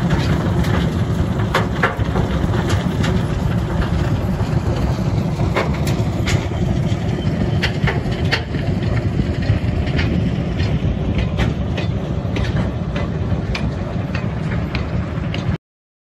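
Belt conveyor running loaded with rocks: a steady low mechanical drone with frequent sharp clacks of stones knocking against the belt and rollers. It cuts off suddenly near the end.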